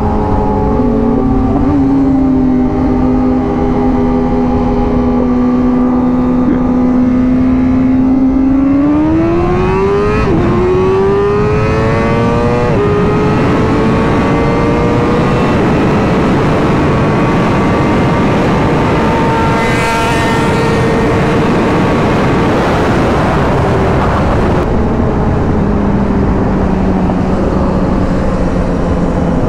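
Motorcycle engine under way over steady wind rush: the revs hold low, then climb hard twice with a gear change between, about nine to thirteen seconds in. They hold high for about ten seconds, then drop back near the end.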